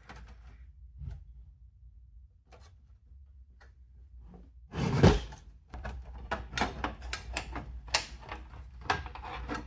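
Hard drive bracket being worked loose and pulled out of a PC case: a few faint clicks, then a loud knock about five seconds in, followed by a busy run of clicks and rattles.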